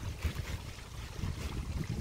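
Wind buffeting the microphone outdoors: an uneven, gusty low rumble with a faint rustle above it.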